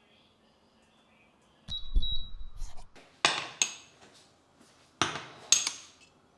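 A dull thump followed by two pairs of sharp clinks of hard dishware or glass being handled and set down.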